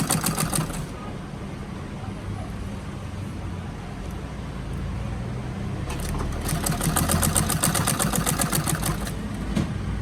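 Sewing machine stitching a zipper in at a controlled speed, with a quick, even rhythm of needle strokes. It stops about a second in and starts again after about five seconds, over a steady low hum.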